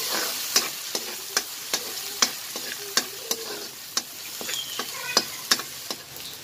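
Chopped red onion and garlic sizzling as they sauté in a wok, with a metal spatula stirring and scraping against the pan in sharp clicks about twice a second. The stirring stops near the end while the sizzle goes on.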